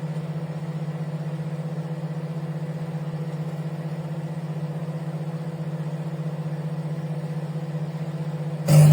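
Microwave oven running: a steady low electrical hum with a slight regular pulse, growing louder for a moment near the end.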